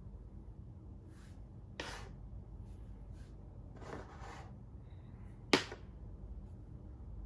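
Makruk (Thai chess) pieces moved by hand on the board: a few light taps and rubs, then one sharp click about five and a half seconds in as a piece is set down.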